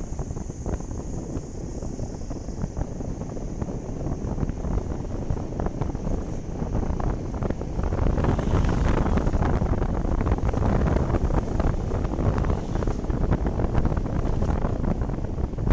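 Wind buffeting the microphone, with a low rumble, growing louder about halfway through.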